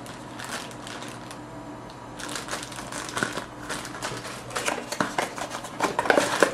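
Clear plastic bag of small kit parts crinkling and rustling as it is handled, with light knocks against cardboard; sparse at first, busier from about two seconds in.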